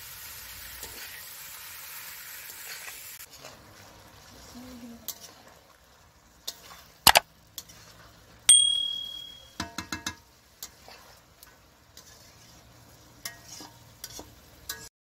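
Chicken pieces frying in spice paste in a metal karahi while a metal spatula stirs them, scraping and knocking against the pan. The sizzle is steady for the first few seconds, then quieter. There is one sharp clang with the pan ringing about halfway through, followed by a few more scrapes and clinks.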